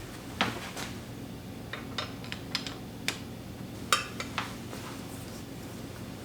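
Metal tools and bicycle parts clinking and tapping as they are handled: about a dozen sharp, irregularly spaced clicks, loudest near the start and about four seconds in, over a steady low hum.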